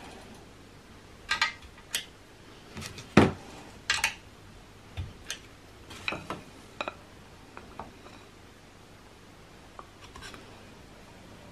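Sharp metallic clicks and clinks as a magnetic-base dial indicator is handled and moved along an aluminium rail extrusion: about a dozen irregular knocks, the loudest about three seconds in, thinning to a few light taps later.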